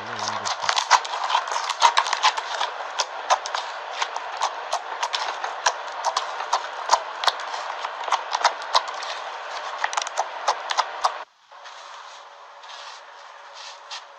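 Slime being squeezed and kneaded, giving a dense run of irregular crackling and popping clicks over a steady hiss. The clicking stops abruptly about eleven seconds in, leaving only a faint hiss.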